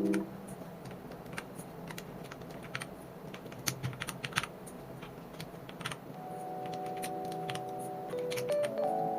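Irregular sharp plastic clicks of keycaps being pressed onto a mechanical keyboard's switches. Soft background music comes in about six seconds in.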